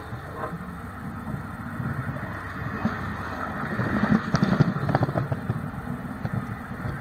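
Cars of a work train rolling directly overhead, steel wheels clattering on the rails, with a louder run of sharp clicks about four to five seconds in as a wheelset passes.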